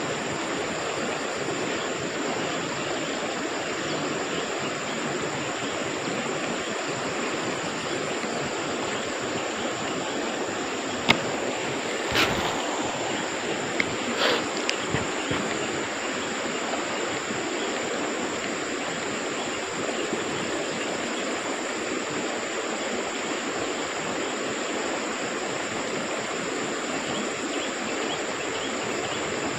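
Steady rush of flowing stream water, with a steady high insect drone over it. A few short clicks and knocks come about halfway through.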